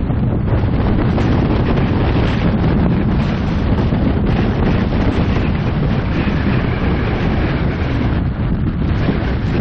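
Strong wind blowing across the microphone in a steady, loud rumble.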